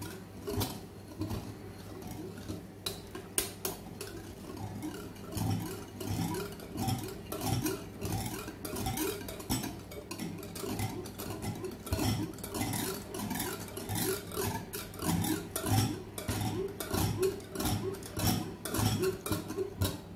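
Wire whisk beating a milk mixture in a glass bowl, its wires clicking and knocking against the glass in quick repeated strokes.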